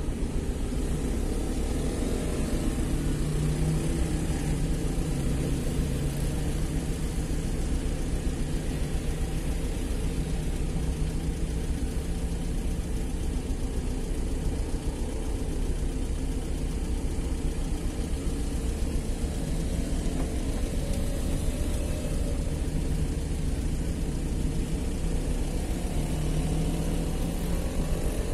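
Car engine idling while stopped at a traffic light, a steady low rumble. Other vehicles pass by, swelling about three seconds in and again near the end.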